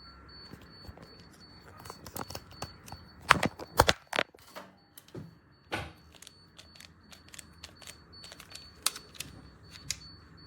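A string of sharp clicks and knocks from hard objects being handled, loudest in a cluster about three to four seconds in, over a faint steady high whine.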